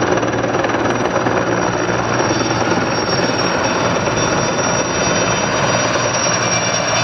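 Erickson S-64 Air-Crane heavy-lift helicopter flying in close: the steady noise of its big rotor with the high whine of its twin turbine engines over it.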